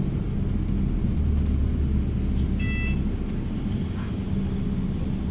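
Low rumble of a London double-decker bus's engine and running gear, heard from the upper deck as the bus drives, swelling for a second or two. A short high-pitched beep sounds about two and a half seconds in.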